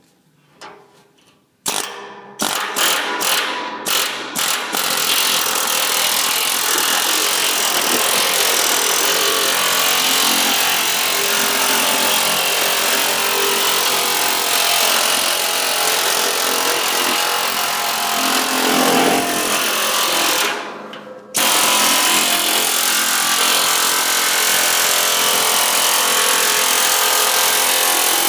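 Pneumatic air chisel hammering through the steel lid of a 55-gallon drum as it cuts around the rim: a few short bursts about two seconds in, then a long, loud, continuous run with one brief stop about three quarters of the way through.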